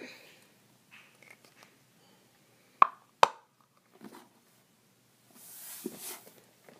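Glitter glue slime squeezed out of a plastic glitter glue bottle, giving two sharp pops in quick succession a little before halfway, soft sticky squelches, and a longer airy squelch near the end as air is forced out with the slime.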